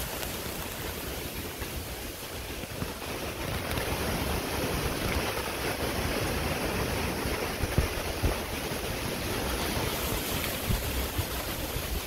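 Wind buffeting the microphone: a steady rushing hiss with uneven low rumbles from the gusts.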